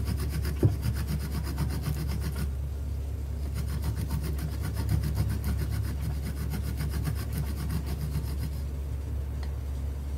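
Half a nutmeg being grated on a ceramic grater plate: quick, even rasping strokes of the nut over the grater's teeth, easing off briefly about two and a half seconds in and dying away near the end.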